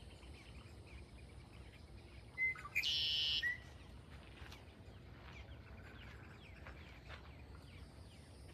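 Birds chirping faintly over steady low background noise; a little over two seconds in, a short high note is followed by one louder high bird call lasting under a second.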